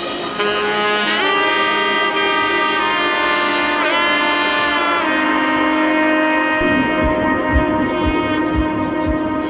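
Background music with a melody of held, sliding notes, sounding like saxophone or brass; a steady beat comes in about two-thirds of the way through.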